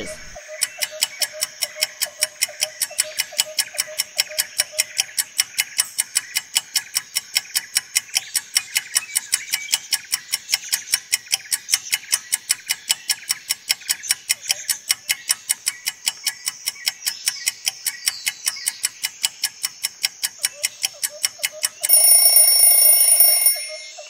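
Countdown clock ticking rapidly and evenly, ending near the end with an alarm-clock bell ringing for about a second and a half as time runs out.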